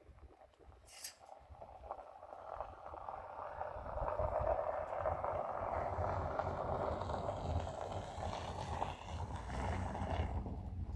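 A vehicle running along with a steady low rumble and road noise, building up about four seconds in and easing off near the end. A short hissy click comes about a second in.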